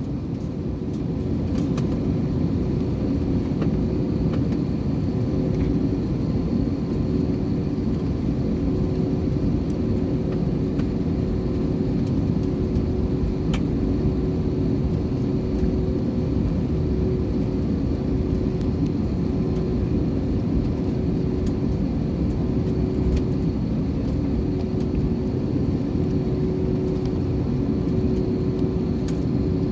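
Jet airliner's engines running, heard inside the cabin: a steady rumble with a held hum, swelling slightly about a second in. The aircraft is cleared for takeoff.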